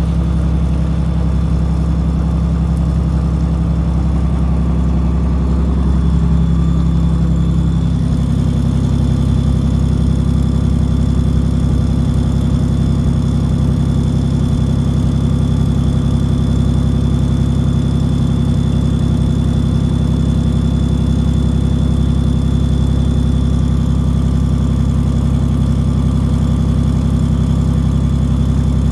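A vehicle engine running steadily, loud and droning, its note shifting about eight seconds in, with a faint high whine over it.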